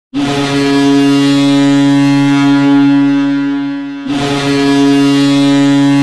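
Ice hockey goal horn of the Iowa Heartlanders sounding a goal: a low, steady blast of about four seconds, then a second blast beginning about four seconds in.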